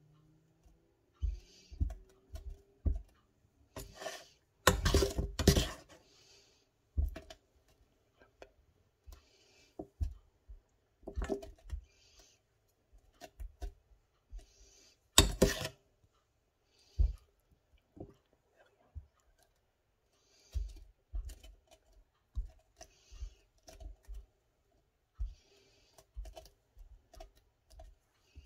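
A metal spoon clicking and scraping as it packs a mash of softened kibble tightly into a rubber Kong dog toy. There are scattered light clicks and a few louder knocks, about five seconds in and again at about fifteen seconds.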